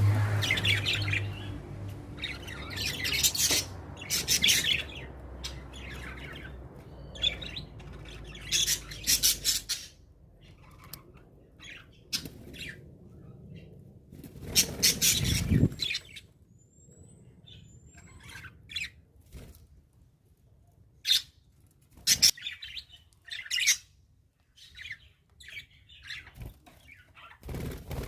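Pet budgerigars chirping in short, scattered bursts, with a low hum that stops about ten seconds in.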